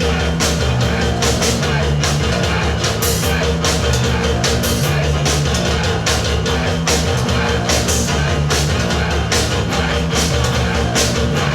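Rock band playing live and loud: drum kit beating fast, tight hits several times a second under guitars and bass.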